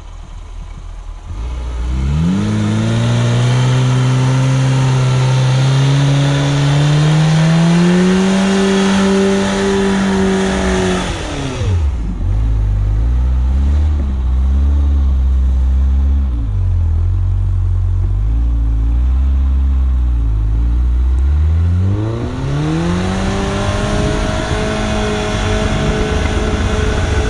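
Suzuki SJ410's four-cylinder engine revving up under throttle and holding high revs for several seconds, then dropping back to a low rumble for about ten seconds. It revs up again and eases off near the end.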